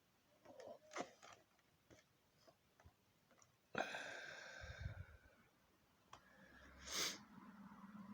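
Faint clicks and taps from handling, then two loud nasal sniffs from a man with a head cold: the first about four seconds in, with a whistling tone, the second a second or so before the end.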